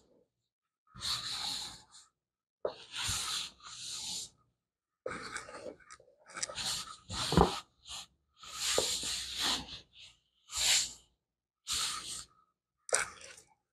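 A spatula scraping soft, freshly churned ice cream out of an ice cream maker's freezer bowl into a plastic container, in about ten short scraping strokes with pauses between them. There is a sharp knock about seven seconds in.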